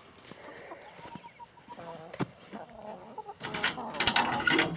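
Hens clucking in short calls, with a sharp click about two seconds in and a rustling, scraping noise through the last second or so.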